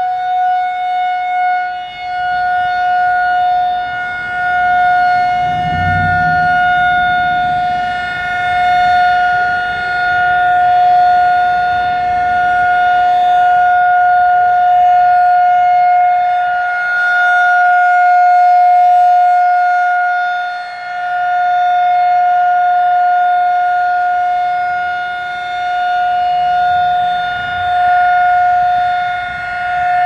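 Federal Signal 2001-SRNB single-tone chopper siren sounding a steady Alert signal: one held pitch that swells and fades every few seconds as the rotating horn sweeps past.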